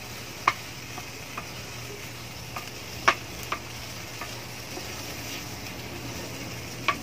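Squid and vegetables sizzling in sauce in an aluminium pan while a wooden spatula stirs them, knocking and scraping against the pan in irregular sharp clicks, the loudest about three seconds in.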